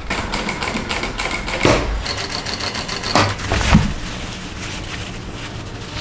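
Industrial single-needle sewing machine stitching at speed: a fast, even clatter of the needle with a steady high motor whine. A few dull knocks come in the first half.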